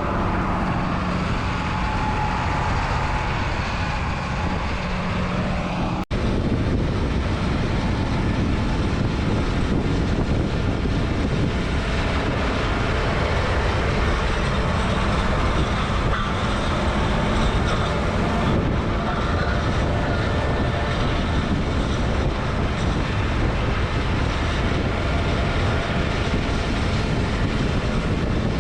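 Sugar beet harvesting machinery running steadily: tractor engine and harvester working in the field. There is a momentary dropout about six seconds in.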